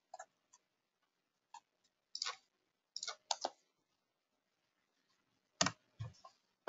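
Computer mouse clicking: a handful of faint, scattered clicks, with a slightly louder knock about a second before the end.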